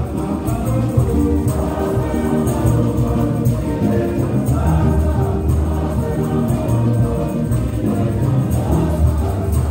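Choir of men singing a hymn in harmony, accompanied by a steady beat on hand drums and percussion, with electric bass and guitars.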